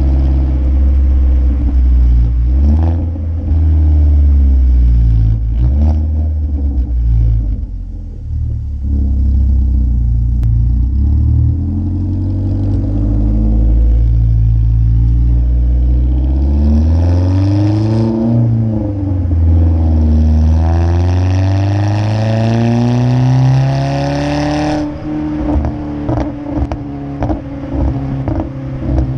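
2015 Ford Focus SE's 2.0-litre four-cylinder engine, muffler deleted, revving up and down under acceleration while driving. The exhaust pops a few times as the revs drop, and when a long climb in revs cuts off near the end it breaks into a rapid run of crackles and pops.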